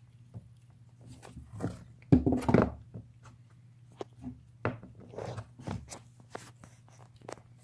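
A cat gnawing and crunching on a bone: irregular clicks and crunchy bites, with the loudest burst of chewing about two seconds in.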